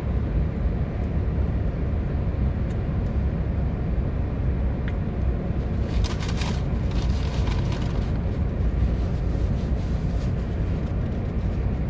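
Steady low hum of a parked car idling with its air conditioning running, heard inside the cabin, with a brief rustle of paper about six seconds in.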